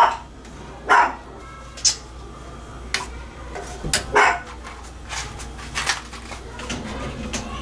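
A dog barking several times, single short barks spaced a second or more apart.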